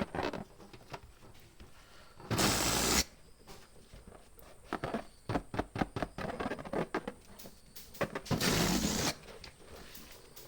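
Two rushes of air, each lasting under a second, from a hand pump inflating a rubber balloon. Between them come scattered short squeaks and taps of the rubber being handled.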